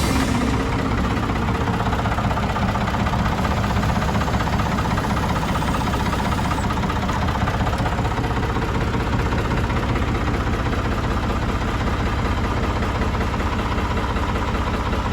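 Old Ford 4500 backhoe's engine idling steadily.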